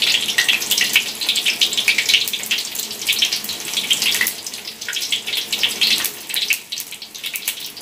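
Tap water running and splashing into a kitchen sink, an uneven hiss with many small spatters that eases off a little now and then.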